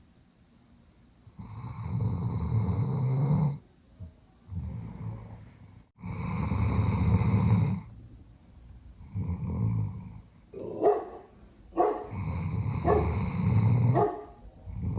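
Doberman snoring deeply in its sleep, long loud snores a few seconds apart. About two-thirds through, a run of short muffled woofs breaks in: the dog barking in its sleep.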